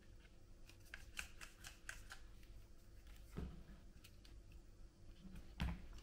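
Handling noises of a small RC car and its transmitter on a wooden tabletop: a quick run of light clicks in the first two seconds, a soft thump about three and a half seconds in, and a louder thump near the end.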